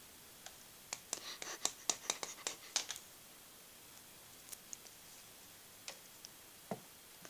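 Faint light clicks and taps of handling: a quick run of about a dozen for two seconds, then a few scattered single clicks.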